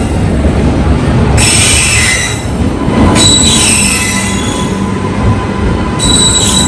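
A train's steel wheels squeal on the rails over a heavy rumble as it moves along the platform. The high, shrill squeals come in three bursts: one about a second and a half in, one about three seconds in, and one near the end.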